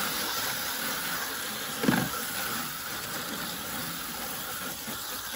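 Water spraying steadily from a garden hose's pistol-grip nozzle onto a skinned chicken carcass and a plastic folding table, a continuous hiss. A brief thump about two seconds in.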